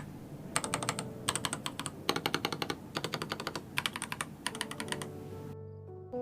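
Typing on a Skyloong GK980 full-size mechanical keyboard: quick runs of key clicks in bursts of about half a second with short pauses between, stopping shortly before the end. Faint music comes in near the end.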